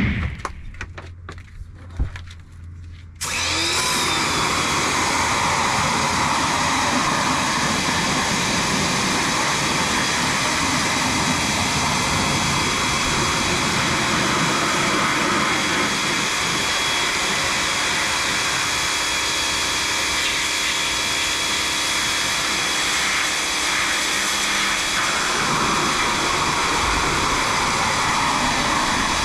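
Craftsman 1900 pressure washer coming on suddenly about three seconds in, then running steadily while its wand sprays water into a car's engine bay.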